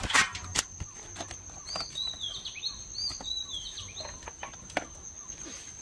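A steady, high insect drone throughout, with a bird giving a run of short, rising-and-falling calls from about two seconds in. Right at the start, a brief loud scuffle as a freshly caught fish is grabbed, and scattered light clicks and knocks throughout.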